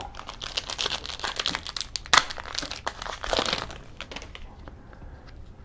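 Crinkling of a plastic trading-card pack wrapper being handled and opened: a dense run of crackles with one sharp crack about two seconds in, fading to faint rustles for the last second or two.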